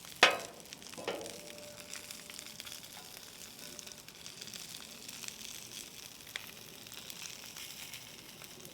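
Potato crowns and bratwurst sizzling on a hot flat-top griddle, a steady frying hiss. A metal utensil clanks sharply against the griddle about a quarter second in, then clinks again about a second in, leaving a ringing tone for a few seconds.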